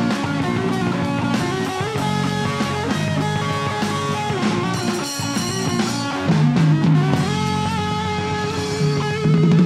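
Live rock band playing: electric guitars over bass and drum kit, with a long held guitar note near the end.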